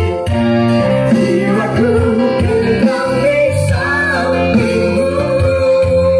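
Live organ tunggal band, keyboard and electric guitar, playing through a PA, with a man and a woman singing a duet into microphones. A long held note runs from about halfway through.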